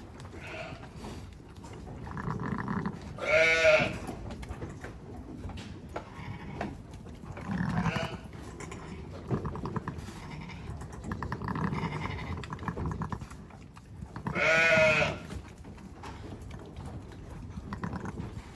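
Icelandic ewe and her newborn lamb bleating just after birth: two loud, wavering bleats, about three and a half and fifteen seconds in, with softer low calls between them.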